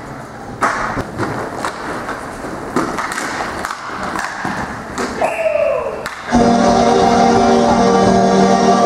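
Hockey game sounds in a large rink: sticks and puck clacking, with scattered sharp knocks and taps against the echoing arena noise. A short falling tone sounds a little after five seconds, then music starts abruptly about six seconds in and plays steadily, louder.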